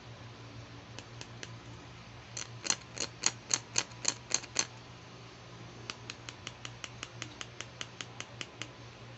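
Pink plastic toy hair clipper clicking as it is worked in the hands: a run of about nine sharp clicks, roughly four a second, then a lighter, quicker run of about fifteen clicks.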